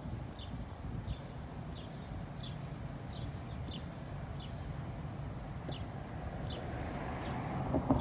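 A small bird repeating a short, high, downward-sliding chirp roughly once a second, over a steady low rumble that swells slightly near the end.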